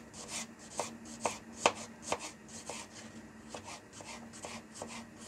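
Kitchen knife slicing peeled garlic cloves on a plastic cutting board: a run of sharp knocks of the blade on the board, about two a second, growing softer after the first couple of seconds.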